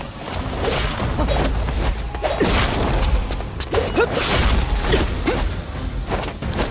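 Animated action sound effects: a run of whooshes and sudden hits over a steady low rumble.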